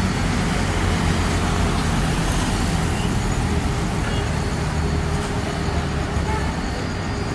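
Steady roar of an Airbus A321 airliner's jet engines as it departs, easing slightly near the end.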